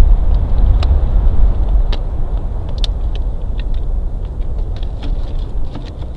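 A bald eagle's beak clicking and snapping against the dry sticks of the nest as she pokes and works them, in scattered sharp ticks, more of them in the second half. Under it runs a steady low rumble of wind on the nest-cam microphone.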